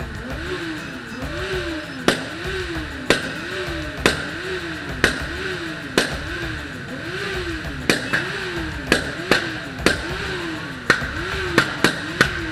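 Motorcycle engines running in a packed parade of bikes, under a siren-like tone that rises and falls about once a second. Sharp loud cracks sound about once a second at first and come faster and less evenly in the second half.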